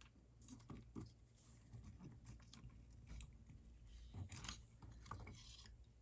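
Near silence with faint, scattered clicks and rustles of small plastic model-truck parts and wires being handled, a little busier about four to five seconds in.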